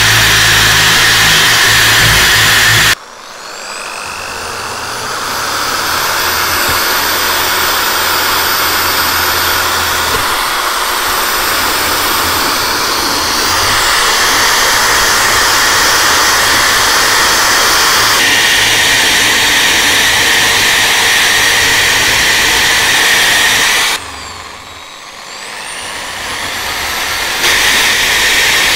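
Electric drill spinning a wire cup brush against rusty cast iron, scrubbing rust off a meat grinder's crank handle and its perforated cutting plate. The sound drops sharply about three seconds in and again a few seconds before the end, each time building back up.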